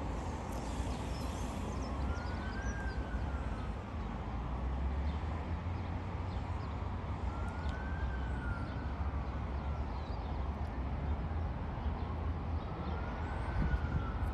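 A siren wailing slowly, its pitch rising and falling about every five seconds, over a steady low rumble.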